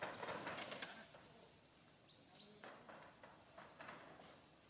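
Faint rustling and snapping of twigs and leaves as monkeys climb through tree branches, strongest in the first second, then a few short high chirps.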